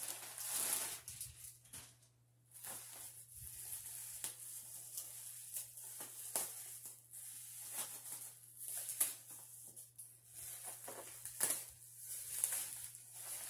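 Clear plastic wrapping rustling and crinkling as it is pulled open by hand, in irregular crackles, over a faint steady low hum.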